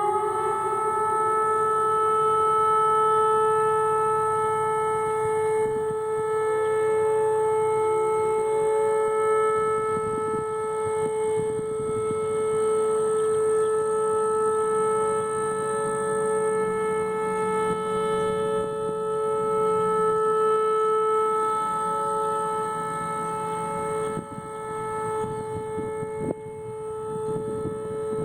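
Whelen WPS 2805 electronic outdoor warning siren sounding a steady tone during a test of the outdoor emergency warning system. The tone holds one pitch after rising just before, with a strong echo, and wavers in loudness near the end.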